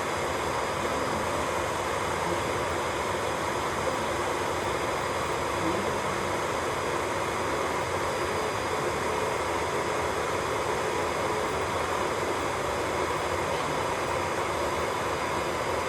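Electric nail drill running steadily: a continuous whir with a few fixed high tones and no pauses.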